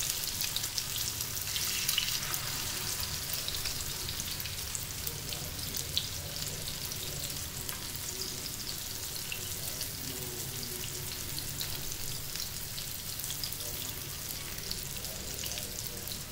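Chicken kebab patties shallow-frying in hot oil on a tawa: a steady sizzle full of fine crackles and pops, a little louder in the first couple of seconds, with a single sharper click about six seconds in.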